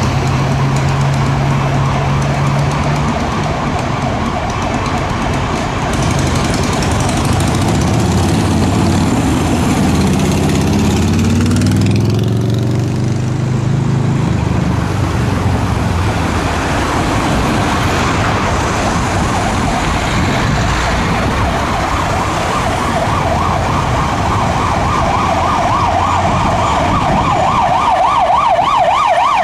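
Emergency vehicle siren sounding a fast warble, getting louder near the end as it approaches. Underneath it the engines of queued traffic run, with one engine rising in pitch as it pulls away around the middle.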